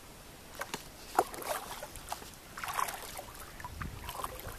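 Kayak paddle strokes: water splashing and trickling off the blades in uneven spells, with a few sharp knocks, the loudest about a second in.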